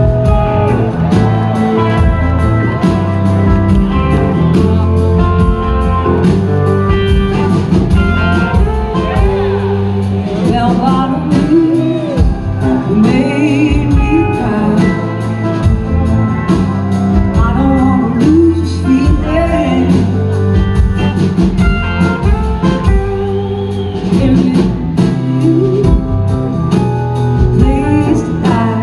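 Live blues-rock band playing a slow song: electric guitars, one played with a slide in gliding lines, over bass and drums, with a woman singing lead.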